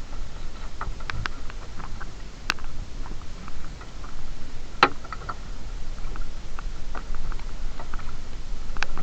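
Scattered light taps and clicks, irregular, with a sharper knock about halfway through, over a steady low rumble: the sound of a fishing net being hauled in and handled aboard a small boat.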